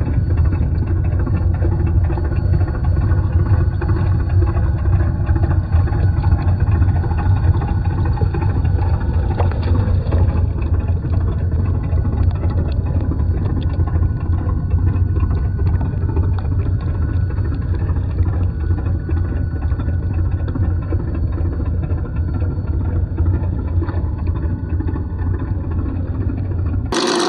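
A low, steady, engine-like rumble with a dull, muffled top end. It is most likely the scale crawler's sound-kit engine noise, slowed down to match slow-motion footage.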